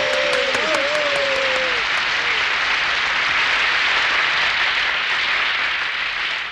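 A large audience applauding, with a few voices calling out over the clapping in the first two seconds. The applause fades near the end.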